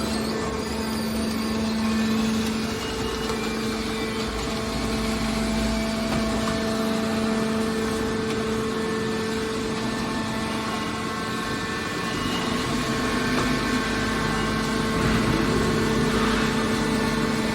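Heavy machinery running steadily: a constant engine-like drone with a steady hum that holds its pitch throughout.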